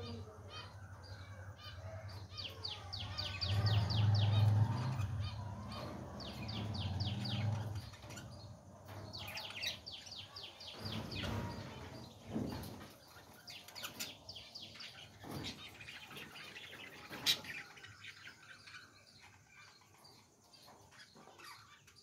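Caged budgerigars chattering and warbling, with fast runs of repeated chirps. A low hum comes up under them from about three to eight seconds in.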